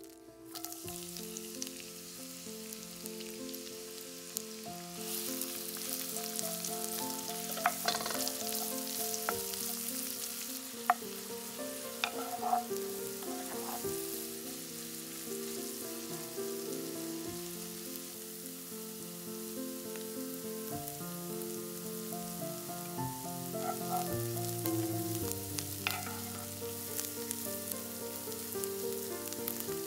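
Food frying in a pan, a steady sizzle that grows louder about five seconds in, with a few sharp clicks of a utensil against the pan while it is stirred. Soft background music plays underneath.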